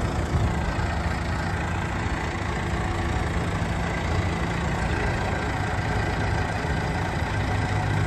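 JCB 214 Series 3 backhoe loader's diesel engine running steadily at low revs while the machine moves slowly.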